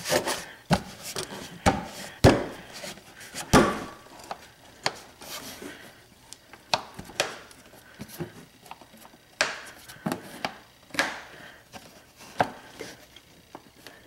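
Scattered clicks, knocks and light rattles of hands handling and refitting the airbox cover and its fasteners after a Uni air filter has gone in, the two loudest knocks a little over two seconds and about three and a half seconds in.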